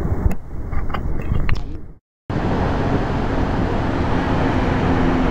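Steady rushing roar of the Iguaçu Falls waterfalls through a compact camera's microphone, with a few light handling clicks in the first two seconds and a brief dropout to silence about two seconds in.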